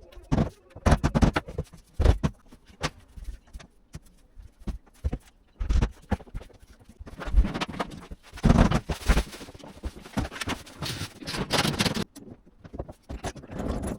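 Laminate floorboards being handled and fitted: irregular knocks and short scraping sounds, some knocks sharp and loud.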